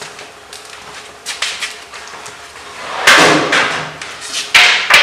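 Loud clattering and knocking of hand tools being picked up and rummaged through on a workbench, in two bursts: one about three seconds in and one near the end, with a few light clicks before them.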